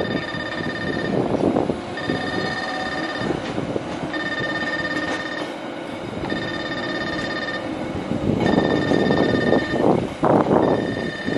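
Level-crossing warning alarm ringing in repeated bursts, about one every two seconds, as the Haeundae Blue Line Park beach train rolls across the road. The train's rumble grows louder in the last few seconds.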